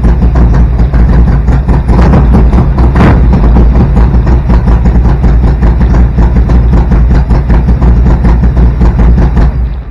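Rebuilt Harley-Davidson Evolution V-twin with 10.5:1 compression and an EV27 cam running on its first start after the rebuild, a steady loud pulsing run that gets briefly louder and brighter about two to three seconds in. The engine sound cuts off near the end.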